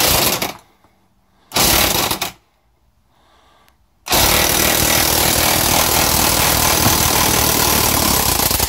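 Electric impact wrench hammering as it drives a two-jaw puller's forcing screw, pressing the output flange off a Tremec TR3650 transmission's output shaft. Two short bursts, then a steady run from about four seconds in.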